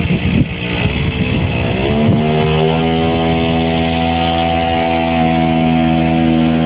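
Small petrol engine of a motorized wheelbarrow, running unevenly at first, then revving up about two seconds in and holding steady high revs as it drives the barrow along.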